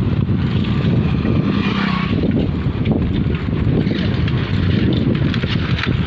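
Wind rushing over the microphone of a bicycle riding at speed on a paved road, a loud steady low rumble with light rattling ticks.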